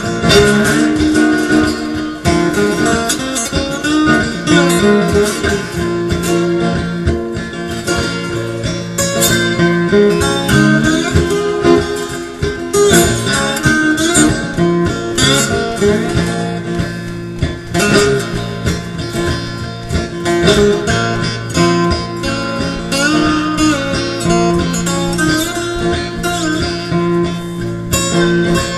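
Four-string bedpan guitar being played: plucked and strummed notes in a repeating loop-based riff.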